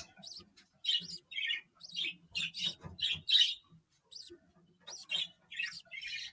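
Pet parrot chirping in a rapid series of short, high calls, with a pause of about a second partway through.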